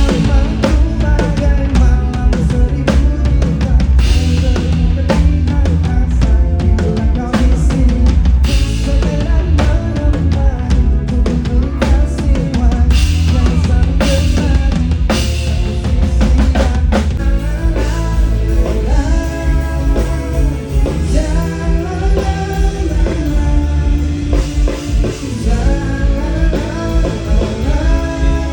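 Full band playing an instrumental passage of a pop-rock song: a drum kit with steady bass drum and snare hits under bass and guitar. After about seventeen seconds the drum hits thin out and melodic guitar or keyboard lines come to the front.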